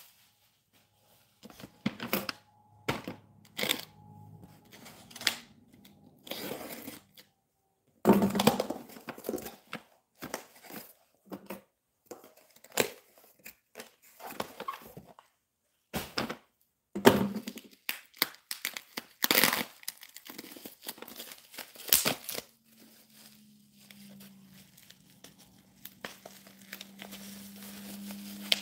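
Packaging being torn open by hand: a padded paper mailer ripped and plastic wrapping crinkled, in a long string of irregular sharp rips and crackles with short pauses between.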